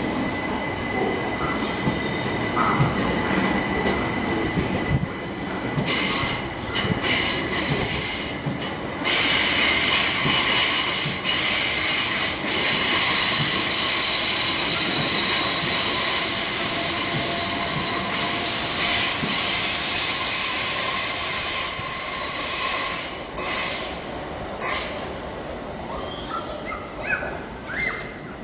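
Electric multiple-unit passenger train running through the station, its wheels squealing on the rails in several steady high tones from about a third of the way in until near the end. Before the squeal, sharp clicks of wheels over rail joints.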